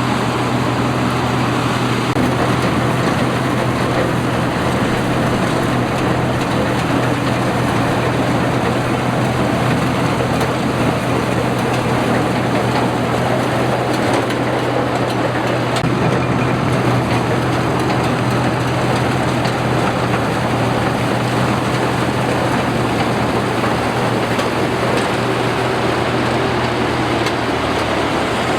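Combine harvester running steadily: an even low engine hum under a dense, unbroken machine noise.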